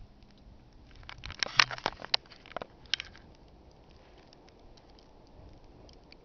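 Crackling, scratching handling noise close on the camera's microphone: a quick cluster of sharp clicks and rustles, loudest between about one and three seconds in, then only faint rustling.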